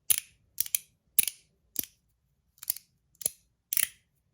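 01 EDC slider fidget worked back and forth by hand, each slide ending in a sharp metal click: about eight clicks, one roughly every half second, with a short pause about two seconds in.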